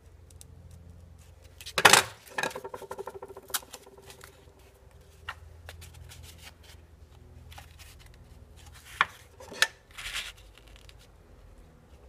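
Cardboard being cut and handled with a snap-off utility knife: a loud sharp tear or scrape about two seconds in, followed by a quick run of about a dozen clicks, then two sharp knocks and a short rustle near the end.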